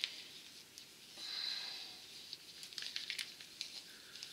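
Faint clicks and rubbing as gloved fingers work at the stiff cap of a small plastic paint bottle that won't open, with a short soft hiss about a second in.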